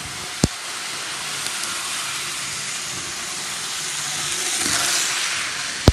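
Model train locomotives running at full throttle on plastic-roadbed track: a steady rushing hiss of motors and wheels that swells as one comes close, about five seconds in, then eases. There is a sharp click about half a second in and another near the end.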